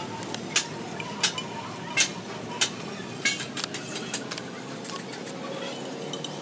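Metal putty knife scraping and clicking against the steel tractor wheel plate while filler is spread around the rim. Sharp clicks come about once every two-thirds of a second for the first few seconds, then a run of lighter clicks, then fewer.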